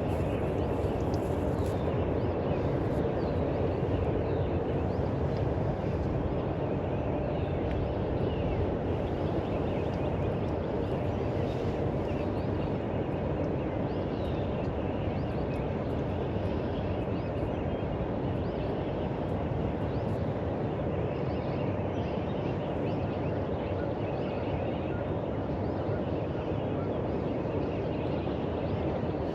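Wild turkeys gobbling at a distance, with faint songbird chirps throughout, over a steady low background rumble.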